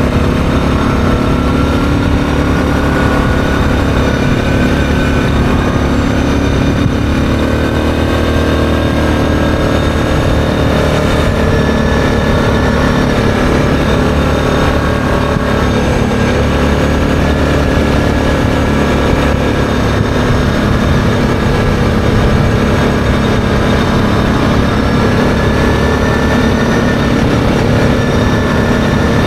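ATV engine running steadily at cruising speed on a gravel road, its pitch shifting slightly a few seconds in.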